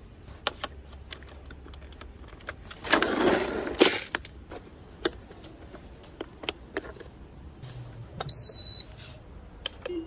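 Hands handling a plastic radio-controlled model tank: scattered sharp clicks and rattles of plastic parts, with a loud rustling burst lasting about a second shortly after the start and a brief high tone near the end.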